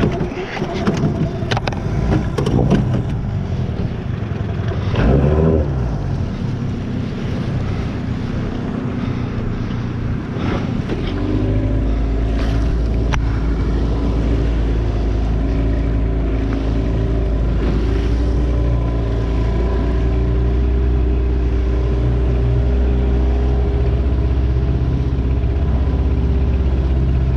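Outboard motor of a small aluminium boat running, with wind and water noise over the first part and a brief rise in engine pitch about five seconds in. From about eleven seconds in, the motor runs at a steady speed.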